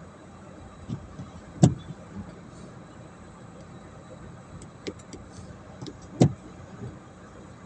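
Steady engine and road noise inside a hearse's cabin, broken by two sharp knocks about a second and a half and six seconds in, with a few fainter clicks between.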